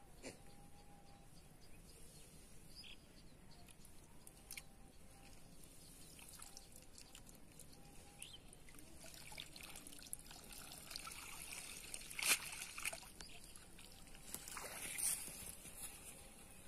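Faint trickling and dripping water with small splashes, and a few sharper splashes in the second half.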